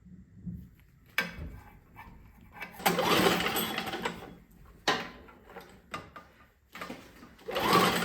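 Tecumseh 5 hp snowblower engine being cranked over twice without starting, each spell of cranking lasting over a second, during a spark check on an engine that won't start. A sharp click comes about a second in.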